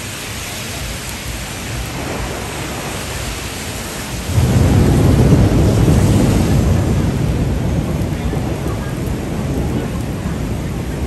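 Rain falling on a city street, with a loud low rumble of thunder that breaks in about four seconds in and slowly fades.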